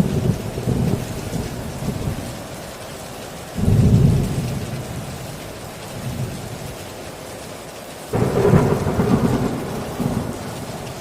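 Torrential rain on a tin roof with thunder: a rumble dying away at the start, then two sudden thunderclaps about three and a half and eight seconds in, each rolling for a couple of seconds before fading into the steady hiss of the rain.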